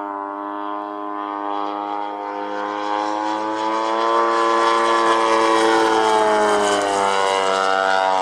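Desert Aircraft DA-85 twin-cylinder two-stroke petrol engine and propeller of a quarter-scale model Messerschmitt Bf 109 G in flight. It drones steadily, growing louder as the plane comes close, then drops in pitch as it flies past.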